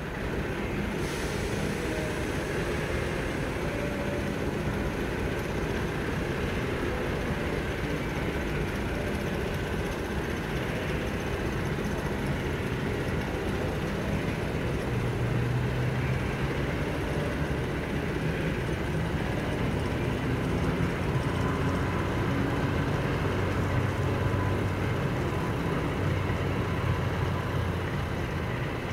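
British Rail Class 08 diesel shunter's engine running, a steady low rumble with a hum that grows a little louder in the second half.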